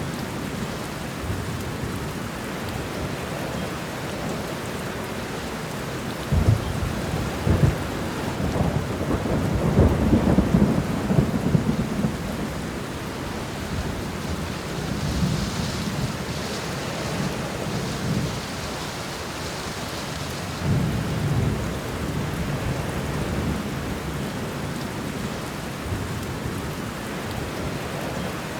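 Steady rain with thunder rumbling under it; the loudest roll comes about six seconds in, opening with two sharp cracks and rumbling on for several seconds, with fainter rumbles later.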